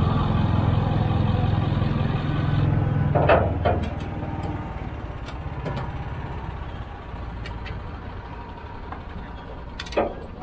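A vehicle engine idling steadily, cutting off about three and a half seconds in, followed by scattered metallic clicks of ratchet straps being worked to tie kayaks down in a pickup bed, with a louder pair of clicks near the end.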